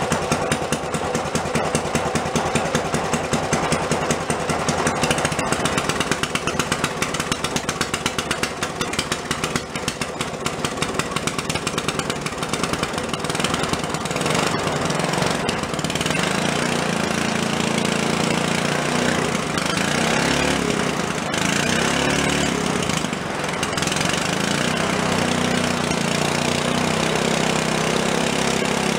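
Antique Briggs & Stratton single-cylinder gas engine running, its separate firing beats plain in the first half, then settling into a smoother, faster run whose speed rises and falls a few times past the middle as it is adjusted by hand.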